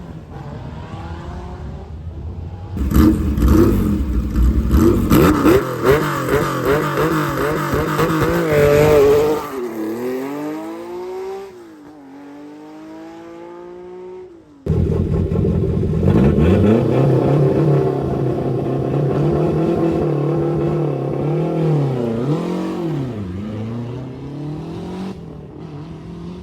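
Historic rally car launched hard from a stage start, its engine revved high and climbing through several gear changes before falling in pitch and fading away. After an abrupt cut, a second rally car is heard at full revs, changing gear and fading into the distance.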